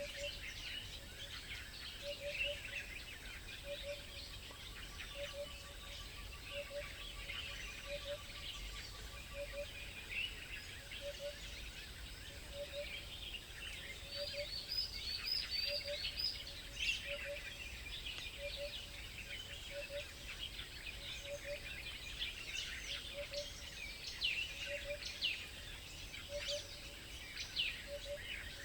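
Many small songbirds chirping and twittering together in a busy chorus. Under them a low double call repeats evenly about every second and a half.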